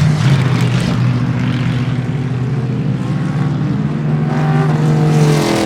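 Historic racing car engines running on the circuit: a steady engine drone, then an engine rising in pitch from about four seconds in as a car accelerates.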